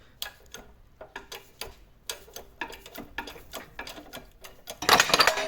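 Irregular sharp metal clicks and clinks as press mandrels and the control arm are handled and set up on a workshop press. About five seconds in, a much louder, dense mechanical noise starts abruptly.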